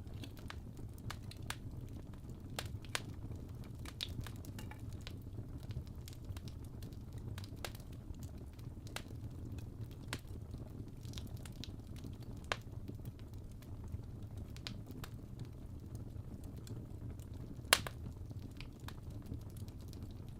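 Fire crackling: a steady low rumble under scattered sharp pops, with one louder pop near the end.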